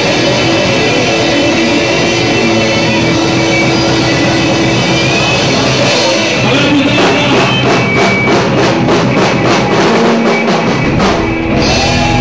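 Live rock band playing loudly: electric guitar, bass guitar, drum kit and a singer. From about halfway the drums hit in a steady, rapid run, about four hits a second, until near the end.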